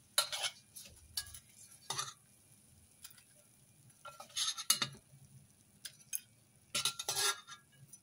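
Spatula scraping and knocking against a stainless steel wok in several short bursts, lifting fried fish out of hot oil.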